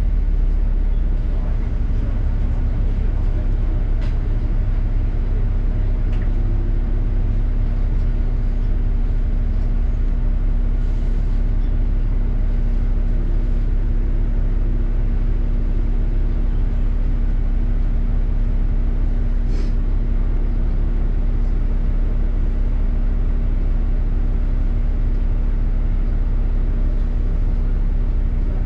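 Inside a London double-decker bus on the move: the steady low rumble of the drivetrain and road with a constant hum over it, and a faint click or two.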